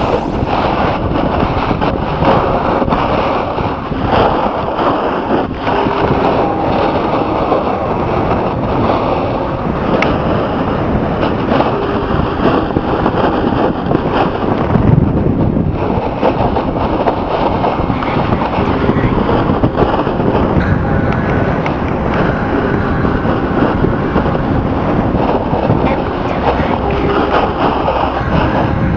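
Wind rushing over the microphone and snow hissing and scraping under skis or a board during a fast downhill ski run, a steady dense rush with no let-up.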